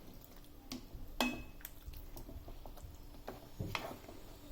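Spoon clinking and scraping against a kadai while chicken is stirred with spice powders, as a few scattered knocks.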